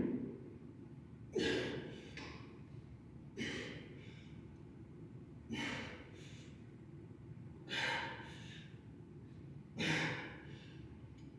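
A man's hard, forced breaths, five short exhales about two seconds apart, in the rhythm of lifting reps during a weight-training set.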